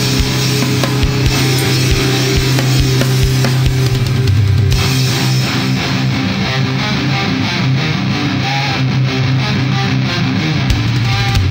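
Deathcore music: heavily distorted electric guitars holding low notes over a pounding drum kit. About five seconds in, the high cymbal wash drops back and the drumming turns to a denser, even pattern.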